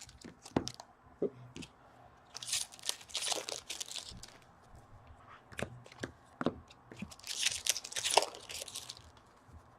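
Trading card pack wrappers being torn open and crinkled, in two spells, with a few sharp clicks of cards and packs being handled.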